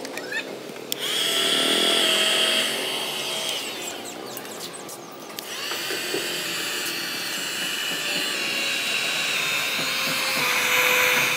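Electric heat gun running, its fan whining and blowing hot air to drive water off a freshly washed motorcycle frame. The sound drops away briefly twice, about a second in and again around four to five seconds in.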